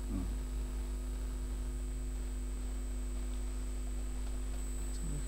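Steady electrical hum from the recording setup, a low drone with several constant tones above it and a thin high whine, with a brief faint vocal sound just after the start and again near the end.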